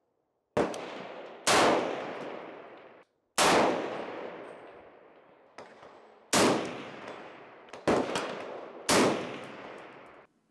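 Gunshots from a suppressor-fitted gun, about six or seven spaced shots, each a sharp crack that trails off over a second or so. They are still plainly loud despite the suppressor.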